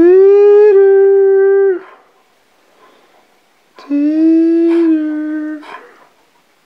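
A dog howling: two long, steady howls, the second starting about four seconds in.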